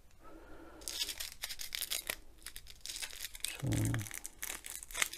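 Small clear plastic bags of square diamond-painting drills crinkling and rustling as they are picked up and handled, starting about a second in. A short low hum comes about three and a half seconds in.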